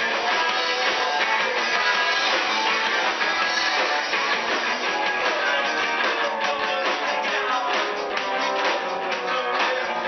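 Live rock band playing at full volume: drum kit and electric guitars, with little bass, and the drum hits cutting through more sharply in the second half.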